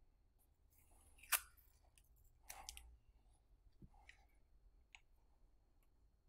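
Quiet handling of a fuel hose and its end fitting while the fitting is being put on: one sharp click about a second in, a short scrape soon after, then a few small ticks.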